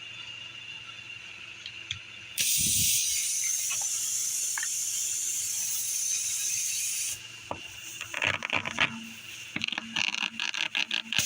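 Air hissing steadily out of the tire for about five seconds, starting and stopping abruptly, followed by a run of short scraping clicks from the plugging work.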